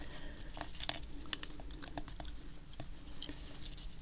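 Small, irregular plastic clicks and taps from handling a Raspberry Pi Zero board and screen while fitting them into a 3D-printed plastic case.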